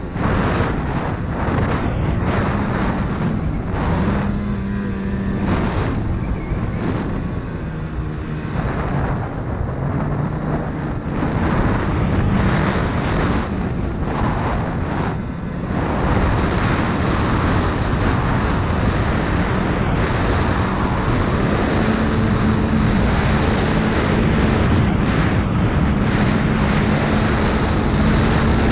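Snowmobile engine running under throttle while riding, its pitch rising and falling through the first half, then holding steadier and a little louder from about halfway through.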